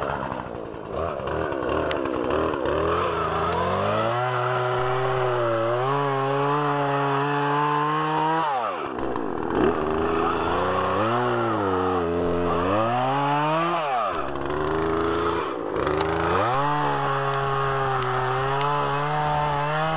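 Two-stroke chainsaw cutting into a dry tree, running at high revs and dropping back, then revving up again, three times.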